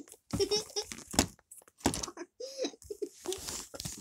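Light clicks and taps of plastic play food and dishes being handled on a toy table, with a few brief voice sounds, one a short hum about two and a half seconds in.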